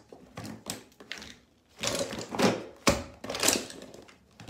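Makeup containers clattering and rustling as they are picked up and handled, with a sharp click about three seconds in.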